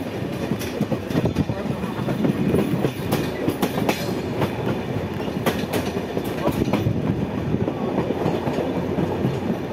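Train wheels rolling over rail joints and yard switches, heard from aboard: a steady rumble broken by sharp clicks and clacks, most of them in the first six seconds.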